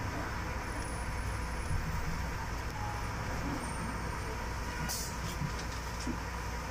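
City bus running along its route: a steady low engine drone with road noise, and one short click about five seconds in.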